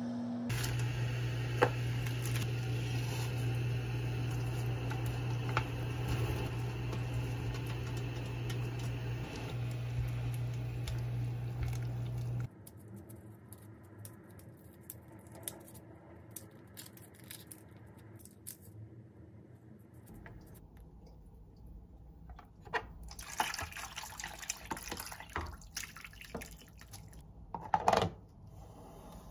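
Liquid poured into a pot of soy-sauce marinade over a steady low hum. About twelve seconds in the hum cuts off, and quieter handling sounds of peeling boiled eggs follow, with light taps and clicks growing near the end and one sharp clatter shortly before it ends.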